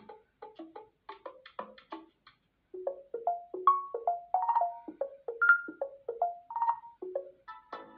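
Samsung Galaxy A26 5G ringtones playing: a quick repeating run of short percussive notes stops about two seconds in. After a short gap a different, louder melody of short mallet-like notes follows, and near the end another tone with held notes begins.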